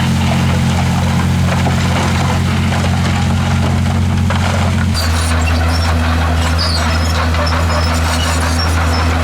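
Diesel engine of a Komatsu D51PX crawler bulldozer running steadily under load. About halfway through the engine note changes abruptly, and high-pitched squeals and clicks from the machine's running gear join it.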